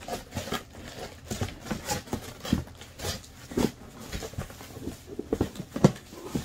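Cardboard retail box being handled and opened: irregular rustles, scrapes and light knocks as the flaps and inner cardboard packaging are pulled out, with a couple of sharper knocks in the second half.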